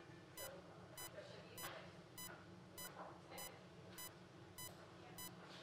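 Bedside patient monitor beeping faintly and regularly, one short beep about every 0.6 seconds, over a low steady hum and a few soft handling rustles.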